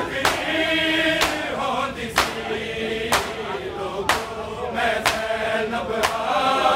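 Men chanting a noha together, with the loud slap of chest-beating (matam) in unison about once a second, seven strikes in all.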